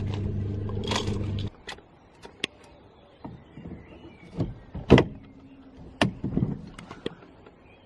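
A small electric motor hums steadily and stops abruptly about a second and a half in. After that come scattered sharp clicks and knocks, the loudest about five seconds in.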